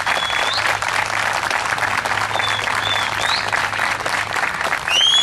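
Audience applauding with steady clapping, with a few short rising whistles over it and a louder one near the end.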